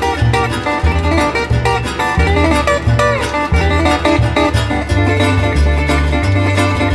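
Metal-bodied resonator guitar played solo fingerstyle: steady low bass notes under a quick plucked melody, with some notes gliding up or down in pitch as on a slide.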